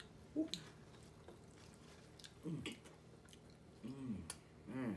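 People chewing and biting into a toasted sandwich and pizza close to the microphone, with wet mouth clicks, broken by a few brief vocal sounds such as hums.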